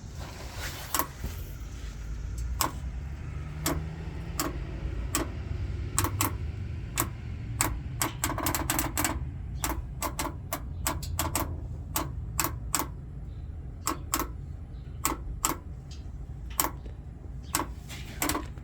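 Repeated sharp clicks from a 2020 GMC Sierra with the 5.3-litre V8 and 8-speed automatic. The clicks come at uneven spacing, about one to three a second, over a steady low rumble from the running truck.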